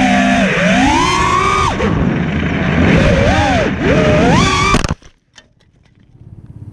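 FPV racing quadcopter's electric motors and propellers whining, the pitch swinging up and down with the throttle. About five seconds in the whine cuts off abruptly, followed by a few faint knocks as the quad goes down into the weeds, and a low buzz builds again near the end.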